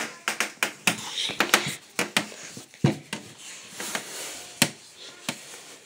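Handling noise from a phone camera held against the body: irregular sharp taps and knocks with rustling in between, several of them in quick succession in the first two seconds.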